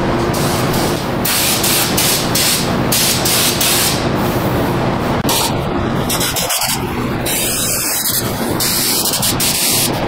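Air-powered undercoating spray gun hissing in repeated bursts as it sprays Fluid Film oil rust-proofing onto a truck's front suspension, the trigger pulled on and off several times. A steady low hum runs underneath.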